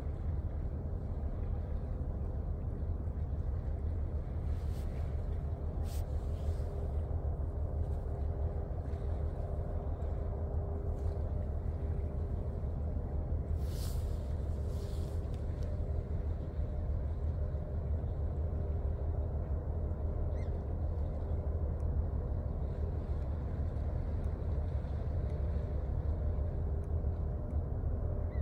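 Steady low rumble with a faint steady hum from a large container ship's machinery as it passes offshore. A couple of brief hissing sounds come about six and fourteen seconds in.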